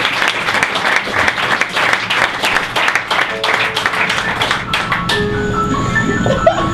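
Theatre audience applauding with many hands clapping. About five seconds in the clapping stops abruptly and music carries on with held notes.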